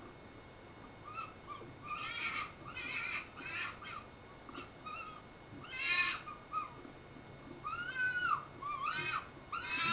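Foxes calling: a string of short, high-pitched calls, each rising and falling in pitch, coming every half second to a second, with the loudest about six seconds in and right at the end.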